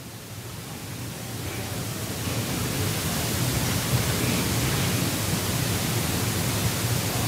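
Steady hiss with a low hum underneath, growing louder over the first three seconds and then holding steady.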